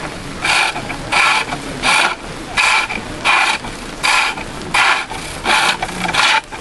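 Spindle gouge cutting into a wooden bat turning back and forth on a foot-powered pole lathe. The gouge cuts only on each downstroke, giving a rhythmic scraping rasp about three times every two seconds, nine strokes in all, with quieter gaps on the upstrokes.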